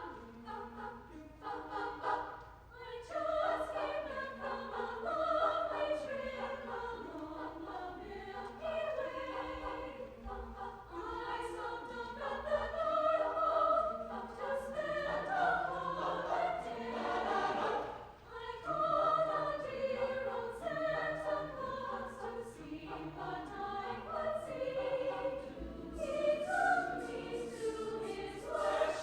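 A choir singing, with held notes that move together in several parts.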